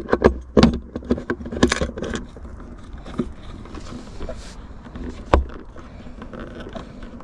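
Clicks and knocks of fishing gear being handled and set in place on a rod-holder frame: a quick cluster in the first two seconds and one sharp knock about five seconds in.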